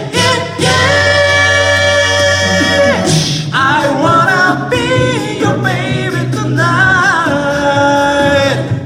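A cappella vocal group singing in close harmony, with no lead words: a chord held for a couple of seconds, then moving harmony lines over a sung bass line.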